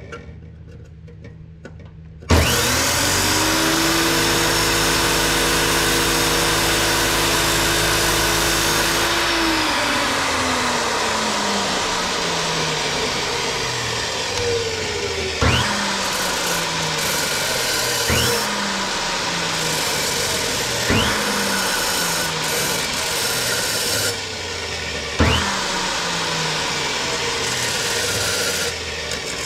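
Abrasive chop saw switched on about two seconds in, running loud while grinding a small steel part for a throttle return spring. Its motor pitch sags and then picks back up every few seconds.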